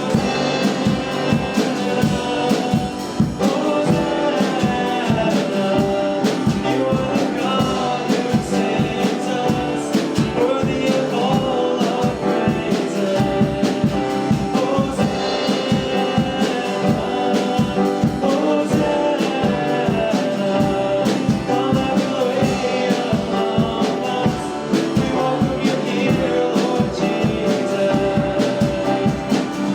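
Live worship band playing a song with singing over a steady beat.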